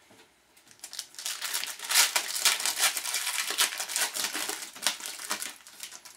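Foil wrapper of a hockey card pack crinkling as it is torn open by hand. The crackle starts about a second in and dies away near the end.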